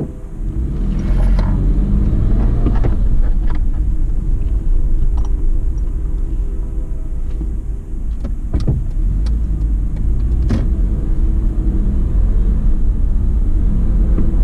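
Car interior: engine and road noise rise suddenly as the car pulls away from a stop, then settle into a steady low rumble while it drives, with a few sharp clicks along the way.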